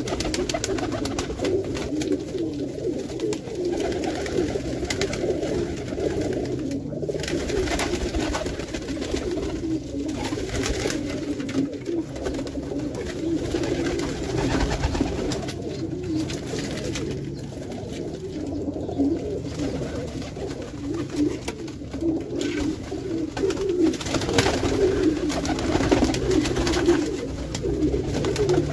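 A loft full of Pakistani and Indian high flyer pigeons cooing together in a steady, overlapping chorus, with wings flapping now and then as birds take off and land.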